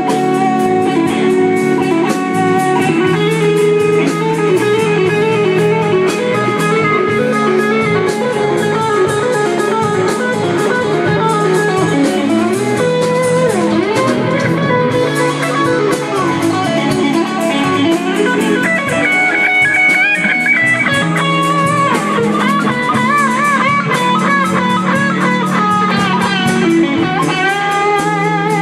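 A band playing an instrumental passage led by electric guitar over bass and drums, slow and bluesy. From about two-thirds of the way in, the guitar notes bend and waver in pitch.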